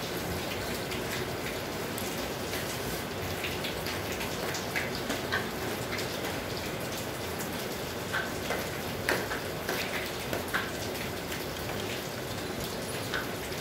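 Steady hiss with scattered faint ticks, a few more of them in the second half.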